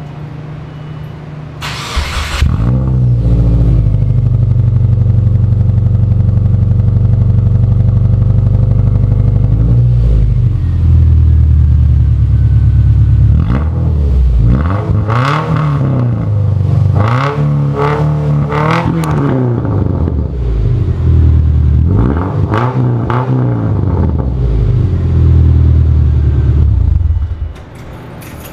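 Subaru Outback boxer engine running through a straight-piped exhaust with the muffler and resonator cut off. It starts about two seconds in, idles loudly, is revved up and back down several times through the middle and later part, and cuts off near the end.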